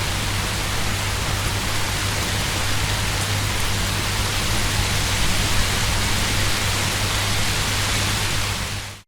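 Heavy rain falling in a steady, dense downpour, with a low steady rumble beneath it; it fades out right at the end.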